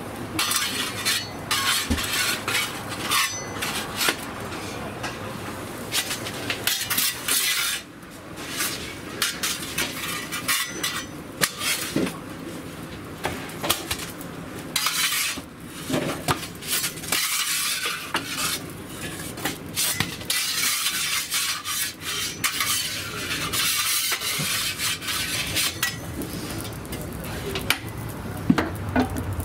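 Long-handled metal oven peel scraping and clinking against the floor of a wood-fired oven and a stone counter as baked puccia breads are lifted out. The clatter comes in irregular bursts of scrapes and clinks.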